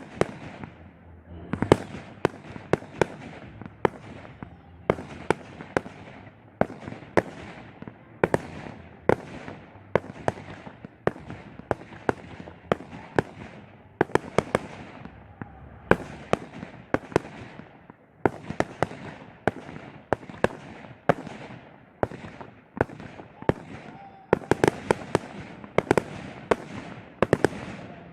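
Fireworks display: a steady run of aerial shells bursting, several sharp bangs a second with crackling and echo between them, thickening into denser volleys near the end.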